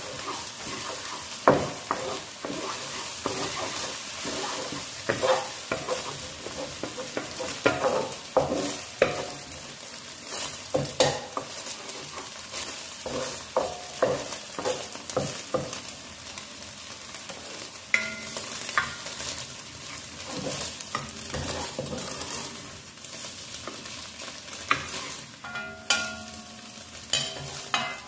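Scrambled eggs sizzling in hot oil in a honeycomb-textured frying pan while a wooden spatula stirs and scrapes them, knocking against the pan many times over a steady hiss.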